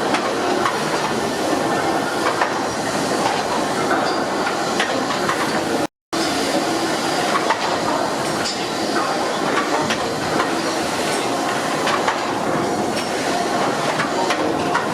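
Fowler steam ploughing engine running, a steady mix of steam hiss and mechanical clatter with small clicks. The sound drops out briefly about six seconds in.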